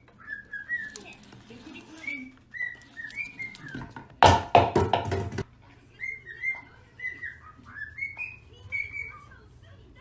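Green-cheeked conure chirping: a string of short, high chirps, each rising or falling slightly in pitch, a few every second. About four seconds in, a louder burst of noise with sharp clicks lasts about a second.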